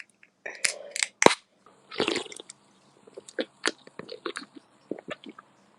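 Irregular short clicks and crunching noises, the loudest few snaps about a second in, with smaller scattered clicks after.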